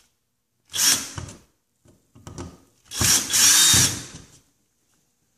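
Power drill briefly running as it drives screws to fasten an electrical box to the wall: a short run about a second in, then a longer run about three seconds in.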